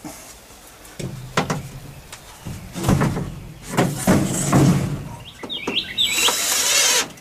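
Plywood sheet being shifted and pushed against the coop's wooden framing, a run of irregular knocks and scrapes; about six seconds in a cordless drill/driver starts up, driving a screw to fasten the sheet.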